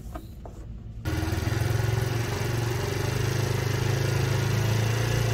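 Tao Pony 49cc scooter's small four-stroke single-cylinder engine idling steadily, coming in abruptly about a second in, on its first run after assembly.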